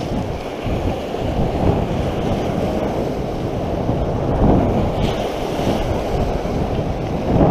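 Small waves breaking and washing up a shingle beach, with wind buffeting the microphone. The surge grows louder about halfway through.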